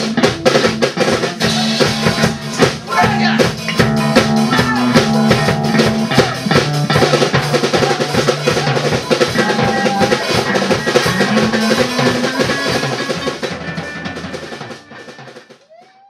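Loud garage rock jam: a Pearl drum kit played hard with busy fills and cymbal crashes over sustained guitar notes. The playing trails off and stops near the end.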